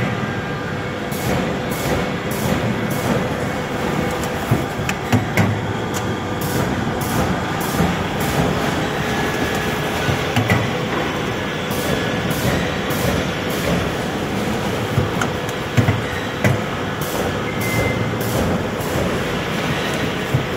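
Automatic carton partition assembling machine running, a steady mechanical din with frequent sharp clacks from its moving parts.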